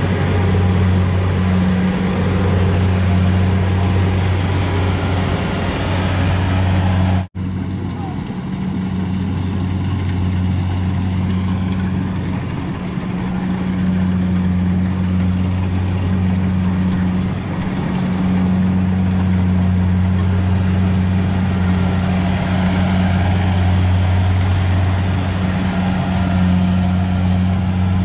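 Rice combine harvester's engine running steadily under load while it cuts the standing rice, a constant low drone.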